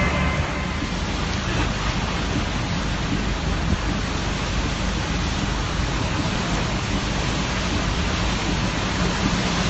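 Heavy typhoon rain, an even, unbroken hiss at a steady level.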